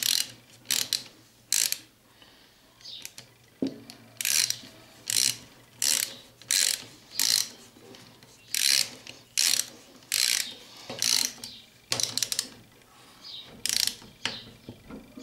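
Ratchet wrench with a 14 mm socket clicking in short repeated strokes, roughly one every second with brief pauses, tightening the cam chain tensioner bolt on a scooter engine.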